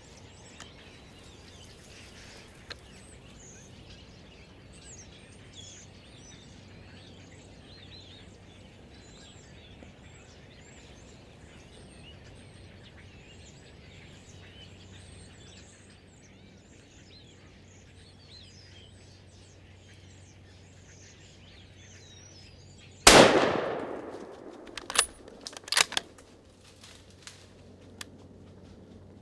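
Faint bird chirps over a quiet woodland background, then about 23 seconds in a single loud rifle shot whose echo fades over a second or so, followed by a few sharp clicks and knocks.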